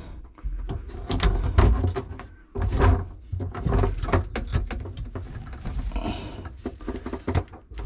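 Irregular knocks, clicks and rustling of hands working inside the cabinet under a kitchen sink, reaching back to the outlet to plug in a new garbage disposal, with dull thumps throughout.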